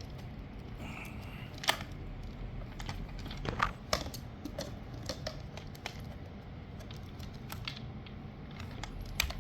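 Scattered plastic clicks and knocks from handling the opened-up housing and parts of a Shark vacuum cleaner, over a low steady background hum.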